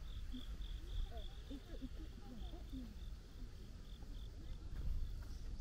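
Crickets chirping in a steady high-pitched pulse of about four chirps a second, over a low outdoor rumble.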